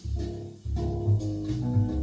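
Jazz trio music: sustained keyboard or organ chords that change about every half second over a walking bass, with regular cymbal strikes.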